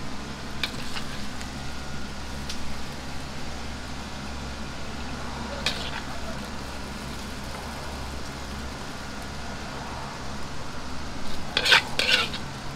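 Metal ladle scraping and knocking against a wok as sweet-and-sour chicken in sauce is slid out onto a plate: a few scattered knocks, then a louder run of scrapes near the end, over a steady kitchen hum.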